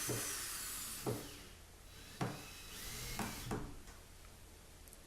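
Power drill driving screws through plasterboard into a wooden skirting-board batten behind it. The drill runs in two bursts, a longer one at the start and a shorter one about halfway through, with a couple of light knocks in between.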